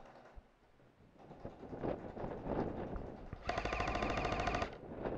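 Airsoft rifle firing one rapid full-auto burst of about a second, a dense rattle of clicks with a whine under it, near the end. Before it come irregular scuffs and knocks.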